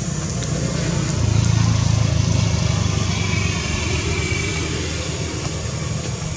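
A motor vehicle's engine running steadily as a low hum, swelling about a second in and then easing off slightly, like a vehicle passing close by.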